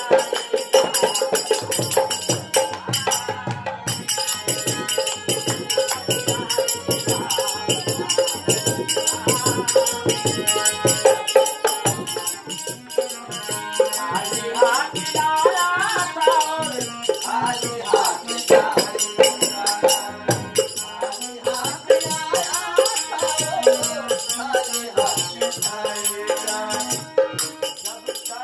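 Live nirgun devotional folk song: a man sings a wavering melody over a harmonium, with a steady dholak drum beat and small hand cymbals ringing throughout.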